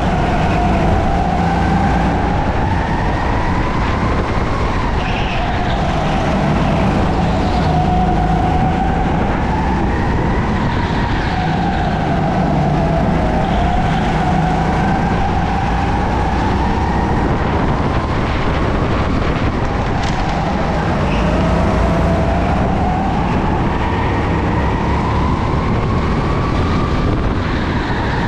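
Go-kart engine running at racing speed, its pitch climbing and dropping again every few seconds as the kart accelerates and slows.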